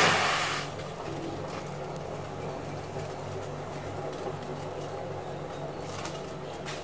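A brief splashing rush at the very start as rice-dough strands are dropped into a steel pan of hot water, then a steady low hum with the faint noise of the water heating.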